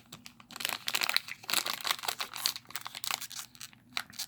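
Crinkling of a foil Pokémon booster pack wrapper being handled, a dense run of irregular crackles.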